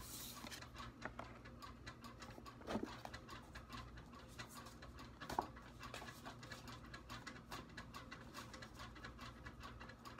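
Tarot cards being shuffled by hand: a soft, quick run of light papery clicks, with two louder taps about three and five seconds in.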